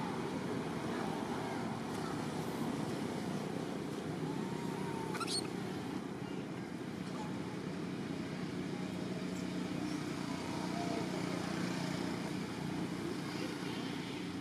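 Steady outdoor background noise, like distant traffic, with a brief high rising squeak about five seconds in.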